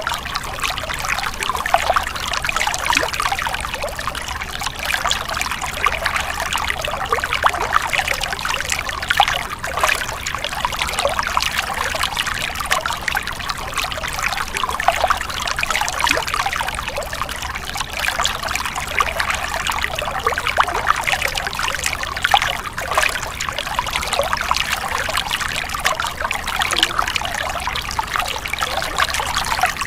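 Stream water splashing and trickling steadily, a continuous rush dense with small splashes.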